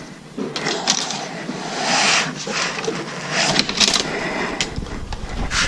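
Jacket fabric rubbing on a chest-mounted GoPro's microphone: a run of irregular swishes and rustles while hands handle a plastic generator case. A low rumble joins near the end.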